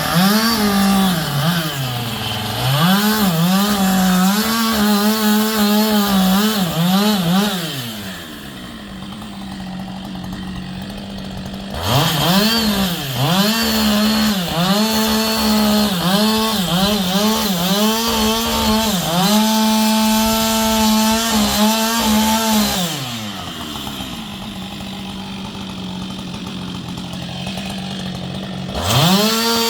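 Two-stroke chainsaw being revved to full throttle again and again, holding high while cutting and dipping between cuts. It drops back to a quieter idle twice: once about a third of the way in and again near the end.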